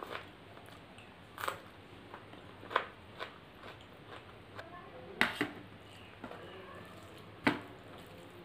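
Close-miked chewing with sharp, wet mouth clicks and smacks, coming irregularly about once a second; the loudest two come about five and seven and a half seconds in.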